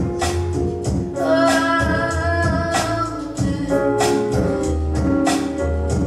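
A song with a singer, bass and a steady percussive beat, played through a Bang & Olufsen Beosound Balance wireless speaker.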